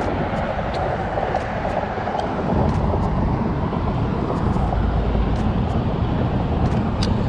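Steady rumble of road traffic, swelling about two and a half seconds in, with faint scattered ticks over it.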